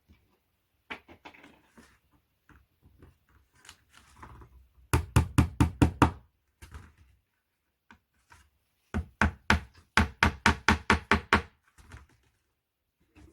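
Hammer blows on particleboard furniture panels during flat-pack assembly. About five seconds in comes a quick run of about seven strikes, and near nine seconds a longer run of about a dozen, with lighter handling knocks in between.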